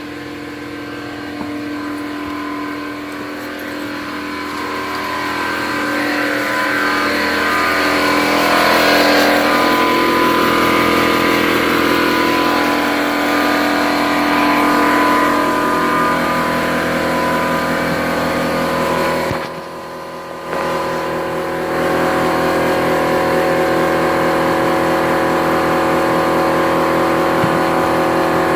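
Ridgid air compressor running, a steady mechanical drone that grows louder over the first several seconds and dips briefly about twenty seconds in before carrying on.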